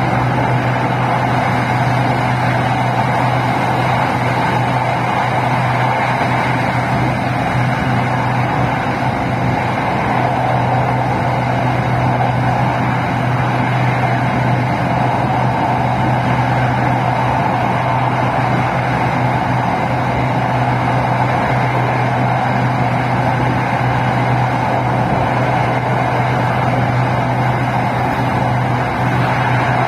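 Steady running noise of an SRT Red Line electric commuter train (Hitachi AT100) heard from aboard, with a constant low hum under the rumble of the ride.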